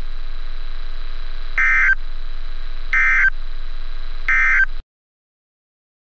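Three short bursts of SAME digital data tones from NOAA Weather Radio, each a harsh warbling buzz about a third of a second long and about 1.4 s apart: the End Of Message code that closes a Required Weekly Test. They sound over a steady hum from the radio feed, and the audio cuts off abruptly about five seconds in.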